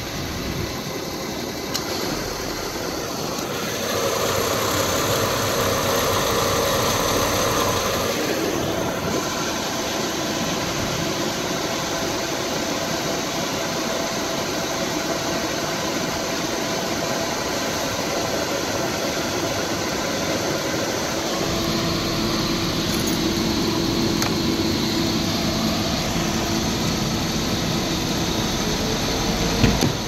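Porsche Boxster S climate-control blower fan running steadily in the cabin over the flat-six engine idling. The rush grows louder about four seconds in, and a steady hum joins about two-thirds of the way through.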